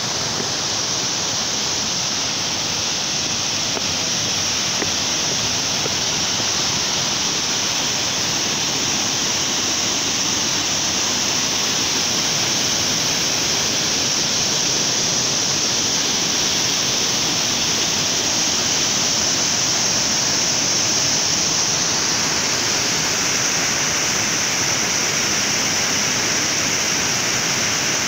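Waterfall cascading over rocks: a loud, steady rush of falling water.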